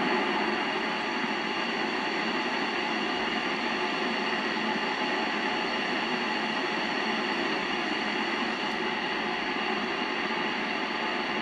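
Steady hiss of an open receiver with no station coming through: the Yaesu FT-847 tuned to the ISS downlink around 437.79 MHz, waiting for a reply.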